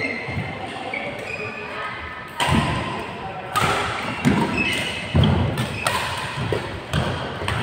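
Badminton rackets striking a shuttlecock in a rally: several sharp smacks about a second apart, starting a couple of seconds in, over background chatter in a large hall.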